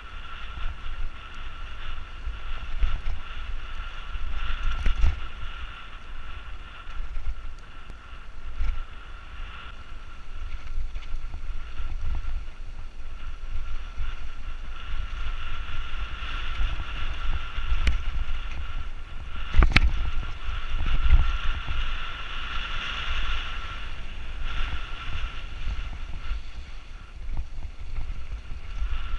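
Mountain bike riding down a dirt trail, heard from a helmet-mounted GoPro: wind on the microphone and tyre rumble, with knocks as the bike hits bumps, the sharpest about twenty seconds in.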